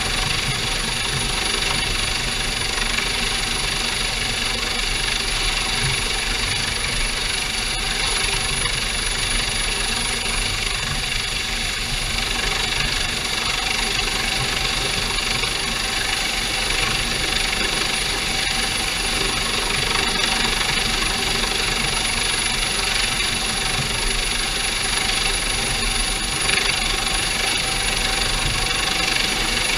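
US Coast Guard HH-65 Dolphin helicopter hovering close overhead, its rotor and turbine noise blended with the boat's engine into a steady, unbroken din. A high whine is held throughout.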